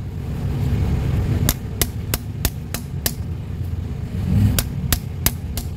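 Hammer striking metal in quick taps, about three a second, in a run of six and then a run of four, over a steady low rumble. The hammer is knocking a pipe into its fitting on the truck, and the pipe is hard to get in.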